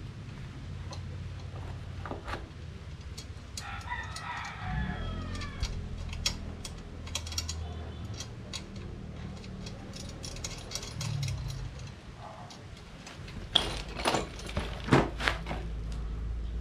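Steel parts of a motorcycle paddock stand being handled and fitted together: scattered light clinks, then a few sharp metallic knocks near the end. A rooster crows once about four seconds in, over a steady low hum.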